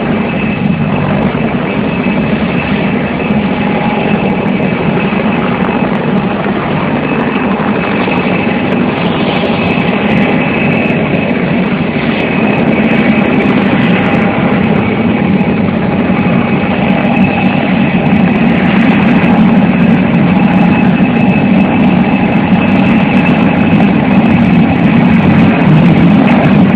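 Air-ambulance helicopter running on the ground: a steady turbine whine over a low engine drone, growing louder near the end.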